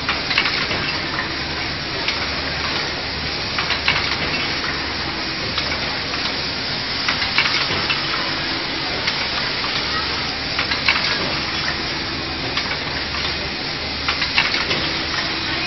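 Automatic motor assembly machine running: a steady hiss and hum, with a cluster of sharp clacks about every three and a half seconds as its air-cylinder stations cycle.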